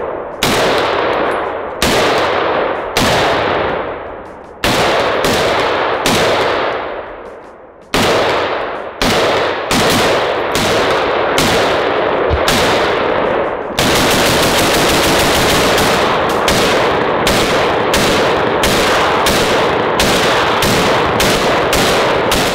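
HK MR762A1 semi-automatic rifle in 7.62 NATO fired repeatedly, each shot followed by a decaying echo. The shots come a second or two apart at first, then in quicker strings of about two a second through the second half.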